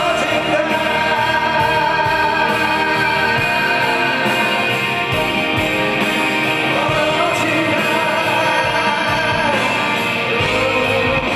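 Male vocalist singing live into a handheld microphone over band accompaniment, holding long sustained notes.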